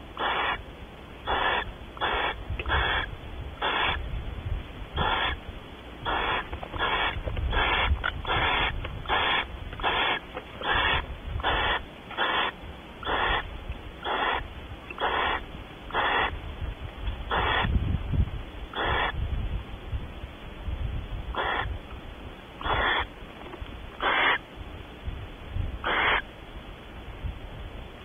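Barn owl giving a long series of short, raspy calls, over twenty of them: about one a second at first, then more widely spaced. A low rumble runs underneath.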